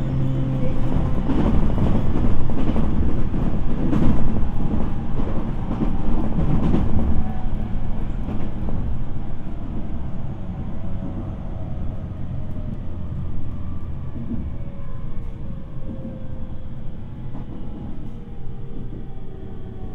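Interior running sound of a JR East 701 series electric train's motor car with a renewed VVVF inverter: the rumble of wheels on rail, with the traction motor and inverter tones slowly falling in pitch as the train slows. The rumble is louder and rougher for the first several seconds and then eases.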